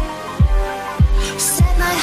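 Background electronic music with a steady kick drum, a little under two beats a second, under held synth chords. A cymbal swell comes in about one and a half seconds in.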